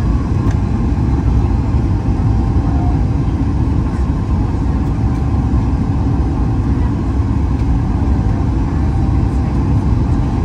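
Steady, loud low rumble of a Boeing 737 MAX 8 cabin in flight: airflow over the fuselage and the drone of its CFM LEAP-1B engines during the approach.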